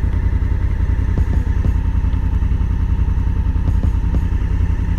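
Honda Africa Twin's parallel-twin engine running under way, a steady low throb with no change in revs.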